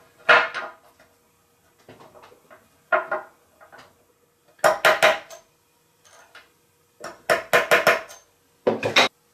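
A small hammer tapping on a cast metal vise screw nut set into a recess in a wooden bench, making short, ringing metallic clinks. The taps come singly at first, then in quick runs of three to five.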